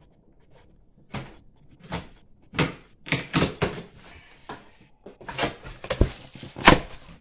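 Corrugated cardboard shipping box being opened by hand: a run of crackles, scrapes and flaps bending back, with sharper knocks near the end.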